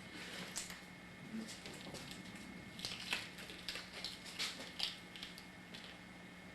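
Faint scattered rustling and small taps of materials being handled by hand, over a steady low electrical hum.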